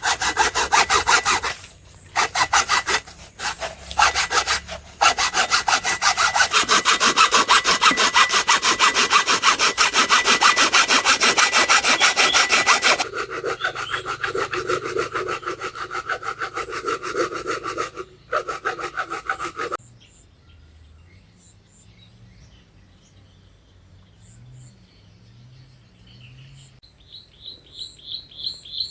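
Hand sawing: fast, even rasping strokes with a few short breaks. The strokes turn quieter and lower about halfway through and stop about two-thirds of the way in. Birds chirp near the end.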